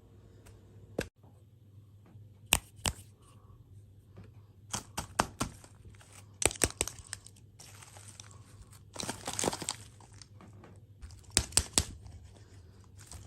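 Plastic snack packaging being torn open and crinkled, in irregular bursts with sharp clicks and taps between them. There is a longer stretch of crinkling about nine seconds in.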